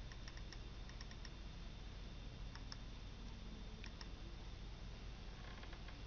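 A few faint, light clicks, some in quick little groups, over a steady low hum.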